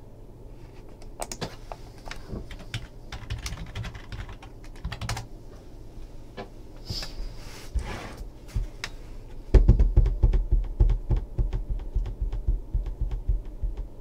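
Scattered light clicks and taps, then about two-thirds of the way in a run of rapid finger-drumming on the tabletop close to the microphone, each tap with a dull low thump.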